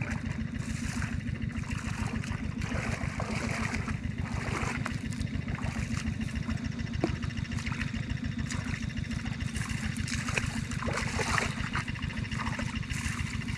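A small engine running steadily with a fast, even low throb, over trickling and splashing water.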